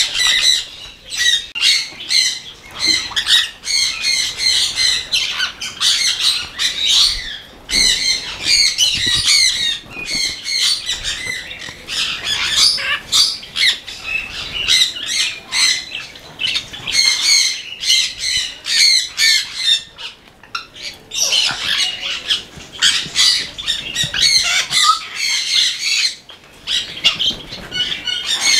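A flock of conures and other small parrots squawking and chattering all at once: many short harsh calls overlapping without pause, easing off briefly only a few times.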